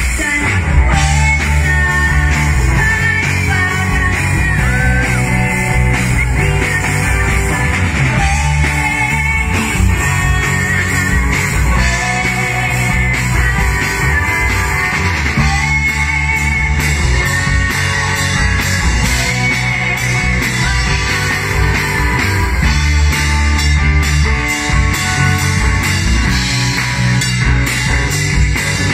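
Live rock band playing an original song through amplifiers: electric guitar, acoustic guitar, bass guitar and drums, with a steady beat.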